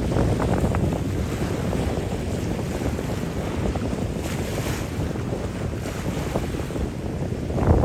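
Wind buffeting the phone's microphone: a steady low rumble with crackling, and a stronger gust near the end.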